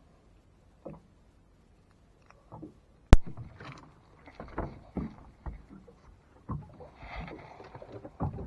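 Irregular knocks and thumps of hard objects being handled, with one sharp, loud snap about three seconds in.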